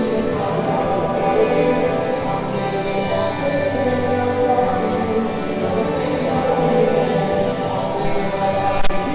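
A worship song: several voices singing together over instrumental backing, with a brief click near the end.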